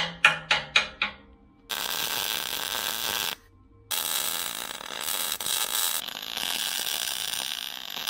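MIG welder arc welding steel hooks onto a backhoe bucket. It crackles in a quick series of short bursts at first, then after a brief pause runs in two longer stretches of steady frying hiss, broken once by a half-second stop.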